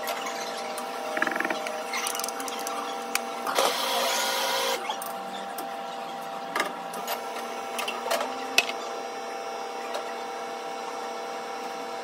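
Café counter work sounds: a steady machine hum with scattered clicks and knocks, and a brief hiss about four seconds in.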